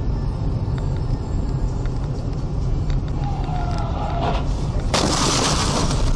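Steady road and engine rumble inside a car's cabin on a dashcam microphone, then about five seconds in a sudden loud crash of the car colliding that lasts a little over a second.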